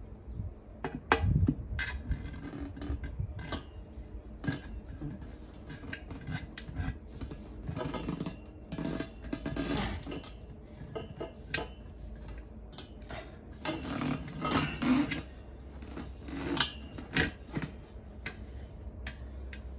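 Steel tyre levers clinking and scraping against an alloy wheel rim while a new 235/50R18 tyre's bead is levered over the rim flange by hand. Irregular metallic knocks, with a few longer scrapes near the middle and toward the end.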